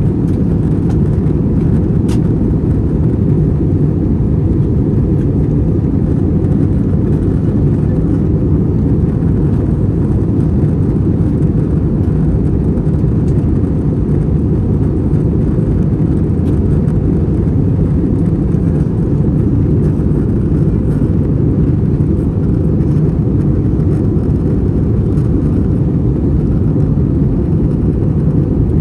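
Steady, deep rumble of an Airbus A321 in flight, heard inside the cabin: airflow and its IAE V2500 engines, even and unchanging.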